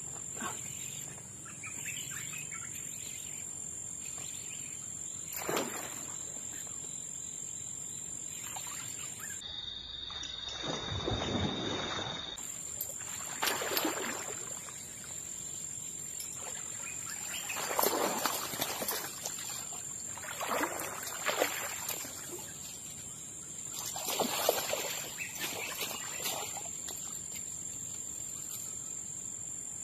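A hooked toman (giant snakehead) thrashing and splashing at the water's surface several times during the fight, over a steady high-pitched drone of insects.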